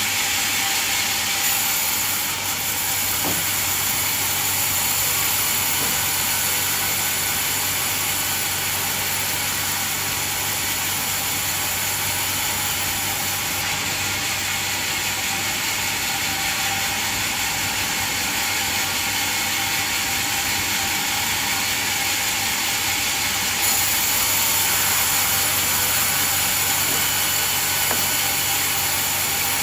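Band sawmill running steadily, a continuous mechanical noise with a low hum underneath, getting a little louder about 24 seconds in.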